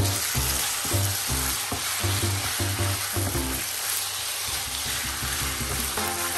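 Strips of pork tenderloin and garlic sizzling in oil in a nonstick wok, stirred and scraped with a wooden spatula. Background music with a low bass line plays underneath.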